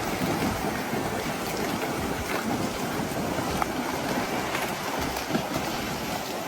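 Steady rush of water and wind buffeting the microphone, with scattered small splashes.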